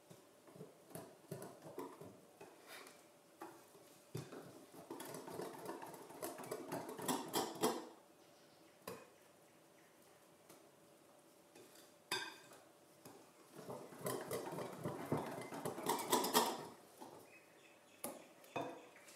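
Wire whisk beating batter in a glass bowl, its metal wires clicking and scraping against the glass. There are two spells of brisk whisking with a quieter pause and a single knock between them.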